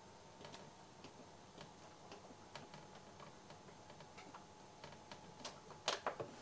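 Faint, irregular light clicks, one or two a second, from the control buttons on the edge of a computer monitor being pressed, with a louder cluster of clicks near the end.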